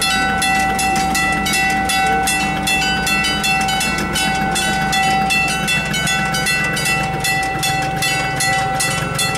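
Italian level-crossing warning bell ringing in rapid, even strokes while the half-barriers are down and the red light shows: the crossing is closed for an approaching train.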